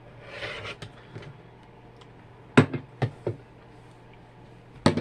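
A brief rustle, then several sharp taps and knocks of hard sewing tools being handled and set down on a worktable, over a low steady hum.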